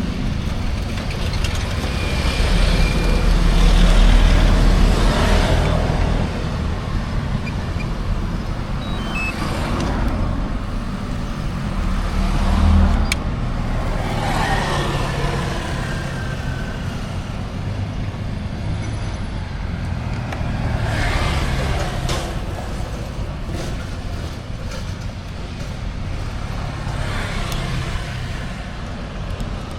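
Road traffic: a steady low rumble with several vehicles passing one after another, each swelling up and fading away.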